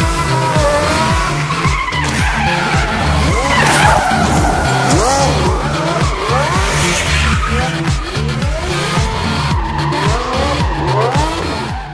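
Drift car sliding at speed: its engine revs rise again and again in quick throttle blips, with tyre squeal throughout, over a music track's bass line.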